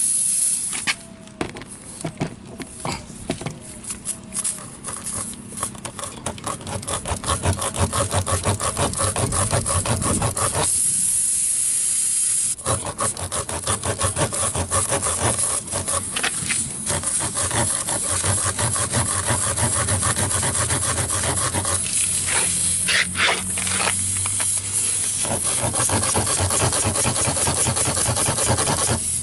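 Tire plug kit's reaming tool rasped back and forth in a tire puncture, a rough, fast, repeated scraping, enlarging the hole so the plug strip can go in. Air hisses out of the hole briefly at the start and again partway through.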